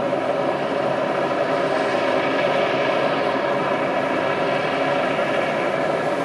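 Rescue helicopter in flight, its rotor and engine making a steady, continuous drone of many even tones.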